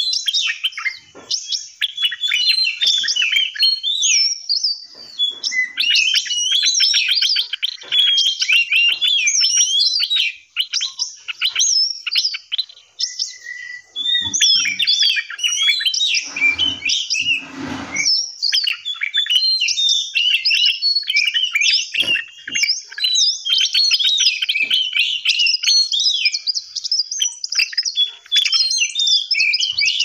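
Several songbirds chirping and singing together, a dense chorus of quick whistled notes that rise and fall. About sixteen seconds in, a rustling noise lasts a couple of seconds under the song.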